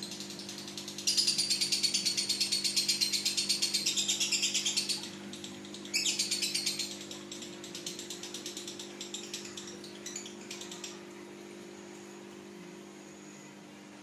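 Caged Fischer's lovebird giving a loud, rapid chattering trill for about four seconds, then a shorter burst, then a softer run that fades out. A steady low hum runs underneath.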